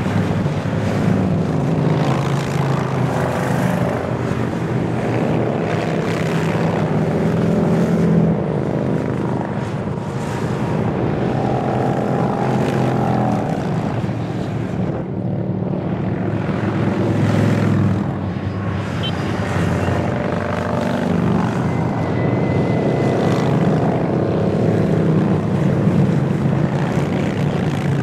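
A long column of motorcycles and trikes passing by on a highway. Their engines make a continuous drone that swells and eases as successive groups of bikes go by.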